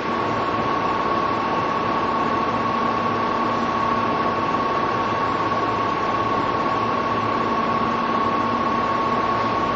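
Cab-less passenger-car ambience of an E233-2000 series electric commuter train standing at its starting station: a steady hiss with a low hum and one steady high tone. The hiss carries some recording noise from a wrong recorder setting.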